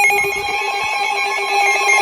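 Electronic emergency-alert tones from a weather alert receiver: rapid pulsing beeps at several fixed pitches over a steady lower tone, sounding ahead of a new severe thunderstorm warning.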